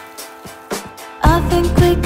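Background pop music with a steady beat; about a second in it swells into a louder, fuller section with heavy bass.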